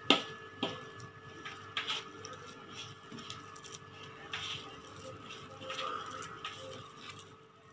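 A hand mixing and kneading maida flour into a wet mashed-mango and semolina mixture in a plastic bowl: soft irregular patting and squishing, with a few sharp knocks against the bowl in the first two seconds. A faint steady hum runs underneath.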